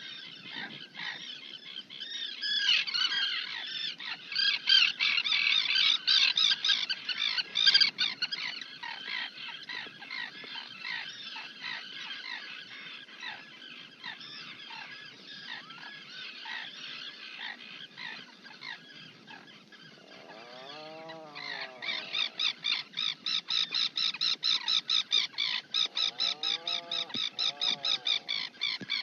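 Birds calling: a dense tangle of high chirps, then from about two-thirds through a fast, even run of high chirps several times a second. Two lower, arched calls break in near the end.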